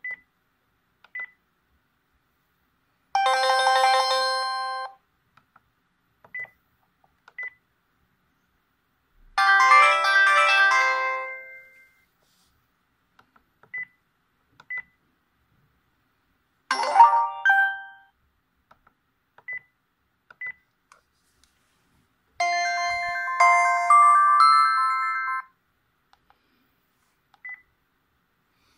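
NEC e313 mobile phone playing four short ringtone melodies one after another, each lasting about two to three seconds before it stops. Between them come short single high beeps, mostly in pairs about a second apart.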